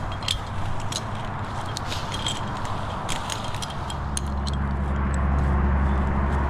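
Metal climbing and rigging hardware clinking and jingling in light, scattered clicks. About four seconds in, a steady low engine hum comes in and grows louder.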